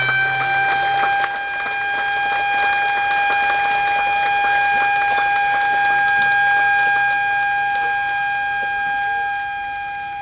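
Ceremonial siren, set off by the button press that marks the official opening. Having wound up, it holds one steady pitch with its overtones.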